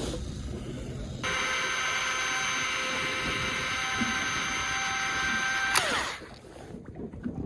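Electric fishing reel running with a steady high whine that starts suddenly about a second in and stops just before the end with a short drop in pitch.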